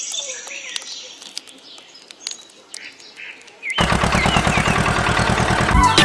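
Birds chirping faintly over outdoor ambience. About four seconds in, loud electronic music cuts in with a rapid stuttering beat.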